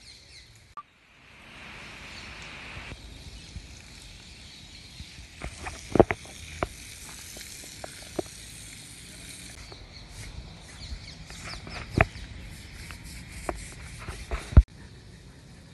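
Water from a hose spraying and splashing onto an elephant and wet ground, a steady hiss broken by a few sharp knocks or slaps, the loudest about six seconds in and just before the end.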